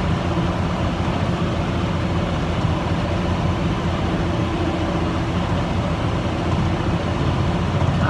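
Tractor engine running steadily under load while pulling a New Holland 616 disc mower through hay, heard from inside the cab as a constant drone that does not change.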